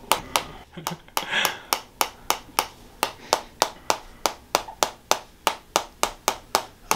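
Tok sen massage hammer tapping a stake held against a person's shoulder: sharp clicks in a steady rhythm, about three strikes a second.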